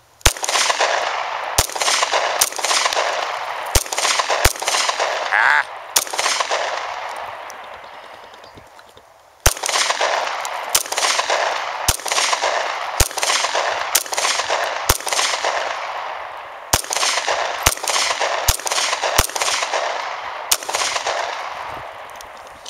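A rapid string of gunshots fired at the target, each sharp crack followed by a long rolling echo, with a pause of about three seconds near the middle before the firing resumes.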